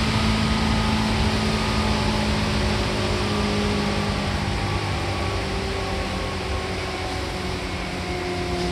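Seibu 2000-series electric train running: a steady rumble of wheels on the rails with motor and gear whine, the whine slowly falling in pitch and the sound easing off as the train slows.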